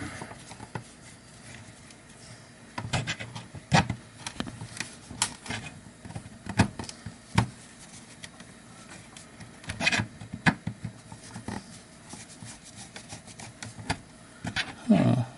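Screwdriver turning screws into the plastic housing of a Snap-On timing light: irregular clicks and knocks of the tool and screws against the plastic case, with a little rubbing.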